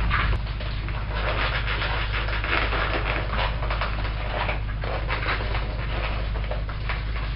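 A cockatoo making its mimicked mystery sound: a run of irregular, rough, breathy noises over a steady low hum.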